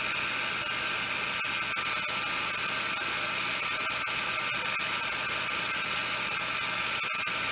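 A steady whirring hiss, even in level throughout, with a few faint clicks scattered through it.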